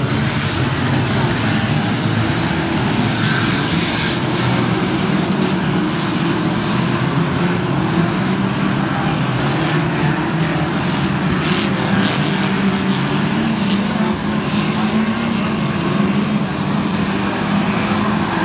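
A pack of 2-litre banger racing cars running hard around the track, a loud steady drone of many engines rising and falling in pitch as they pass, with a few sharp knocks.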